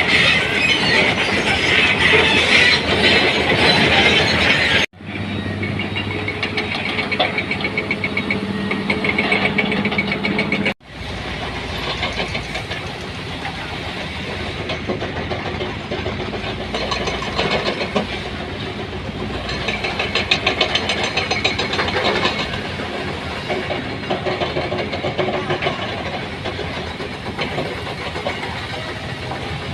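Heavy construction machinery running, with steady engine noise and metallic clatter and squeal. The sound breaks off abruptly twice, about five and eleven seconds in.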